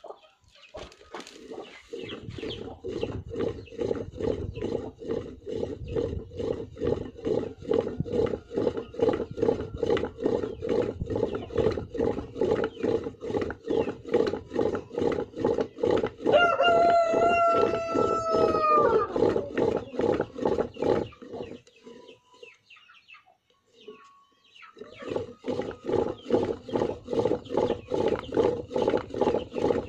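Homemade pump drill worked by hand in a fast, even rhythm, its flywheel spinning back and forth and the bit grinding into a hardened steel planer blade; the strokes stop for a few seconds about two-thirds of the way in, then start again. A rooster crows once near the middle.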